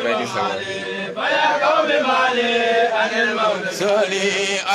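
A man chanting an Arabic devotional poem through a microphone, the melody drawn out in long, bending held notes.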